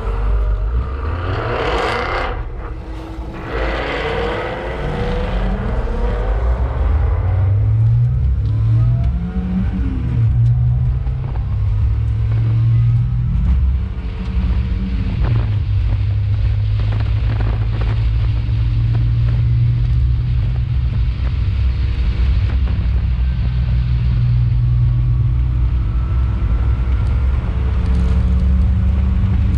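Race car engine running hard on track. Its pitch shifts and climbs in steps through gear changes over the first ten seconds or so, then holds a steady drone.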